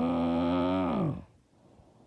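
A woman snoring: a long, loud, droning snore held at a steady pitch, which drops in pitch and fades out about a second in, followed by a quiet pause between breaths.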